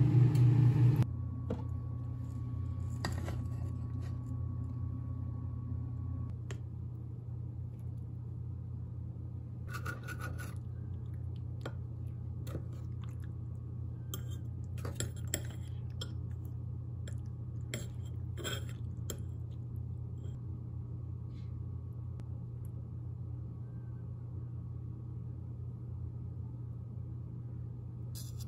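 Fork and knife clinking and scraping against a ceramic bowl and cutting board while stuffed cabbage is cut and eaten, in scattered short clicks over a steady low hum. Background music stops about a second in.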